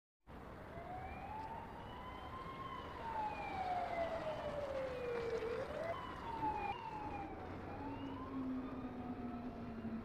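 Police car sirens wailing, two or more overlapping, their pitch slowly rising and falling over a steady wash of street noise.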